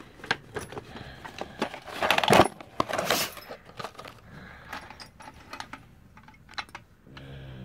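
Hard plastic packaging and a plastic case of metal drill bits being handled: irregular clicks and crackles of plastic with a metallic jangle of the bits, loudest in a burst about two seconds in and again around three seconds.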